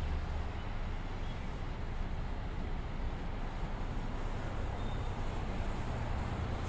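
Steady low rumble and hiss of vehicle noise, even throughout, with no horn or sudden event.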